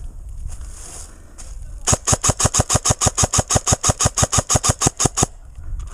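Airsoft gun firing a long, even string of shots, about eight a second, for some three seconds.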